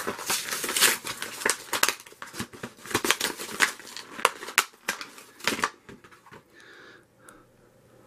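Hard plastic blister packaging of a butane utility lighter being pried and torn open: a dense run of plastic crackling, crinkling and sharp snaps that stops about two-thirds of the way through, leaving a few faint ticks.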